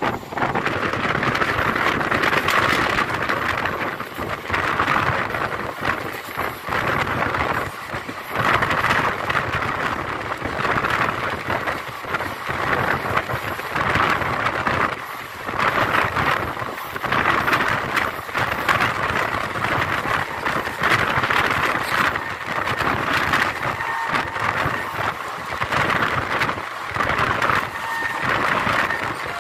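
Passenger train running at speed, heard from an open coach doorway: a steady rushing rumble of wheels on the rails, with wind buffeting the microphone in uneven surges.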